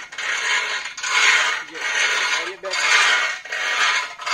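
Homemade rope pulley running under load as a rope is pulled down and let back up to lift a concrete weight for triceps pulldowns. It makes a rough rasping whirr on each stroke, about one stroke a second.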